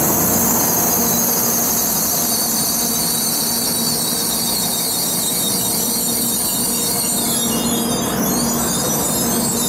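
N700-series Shinkansen train running past at close range as its last car goes by: a steady rush of running noise with high-pitched squealing tones above it.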